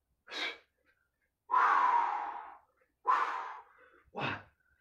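A man breathing hard from exertion during a set of kettlebell lunges to press: four breaths, the longest a drawn-out breath about a second and a half in.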